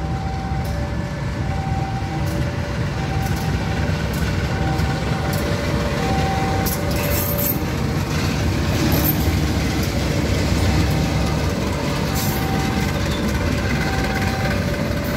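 CC 201 diesel-electric locomotive (GE U18C) hauling a passenger train past: a steady diesel rumble that grows louder as the locomotive comes close about halfway through, with clacks of wheels over the rail joints. A level-crossing alarm alternates between two tones throughout.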